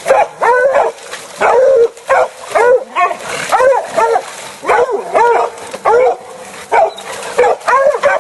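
Hunting dogs barking in a steady, fast run of loud barks, about two to three a second.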